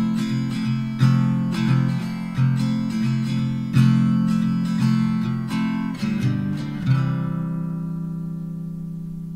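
Acoustic guitar background music, picked and strummed, ending on a chord about seven seconds in that rings out and slowly fades.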